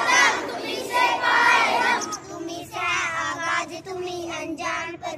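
A group of schoolchildren singing a prayer together in unison.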